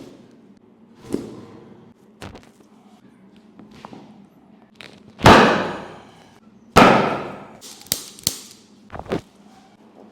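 Chiropractic adjustment: a series of sharp cracks and thuds. The two loudest come about five and seven seconds in and each trails off over about a second, with smaller knocks around them.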